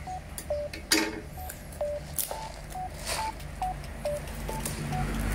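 Light background music: a tune of short, separate plinking notes over a low bed. A few sharp crackles of plastic film sound as a cup-noodle bowl's wrapper is handled, the loudest about a second in.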